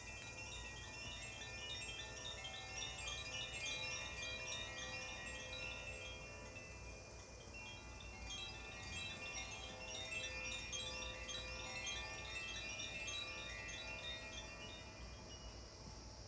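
Makino-style metal chimes played continuously in a sound bath: many tinkling notes struck in quick succession, overlapping and ringing on. The playing swells a little louder in the first few seconds and again in the middle.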